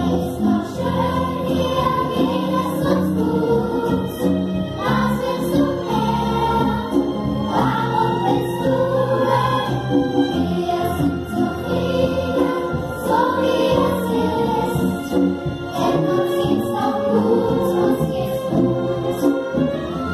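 Children's choir singing a song on stage, the voices carried through stage microphones over steady low accompaniment.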